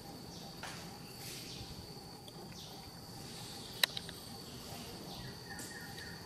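Outdoor ambience with a steady high-pitched insect drone, one sharp click a little under four seconds in, and a few faint short chirps near the end.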